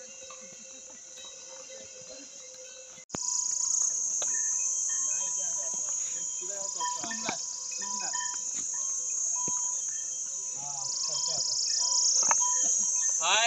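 Steady high-pitched drone of forest insects, becoming louder about three seconds in.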